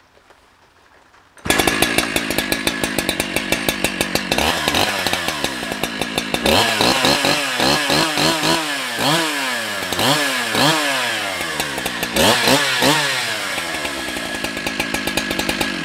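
Husqvarna 365 X-Torq chainsaw's two-stroke engine comes in suddenly about a second and a half in and idles. It is then revved up and down repeatedly before settling back to idle near the end. It is being run to check the newly re-threaded muffler bolts for an exhaust leak, and no leak shows.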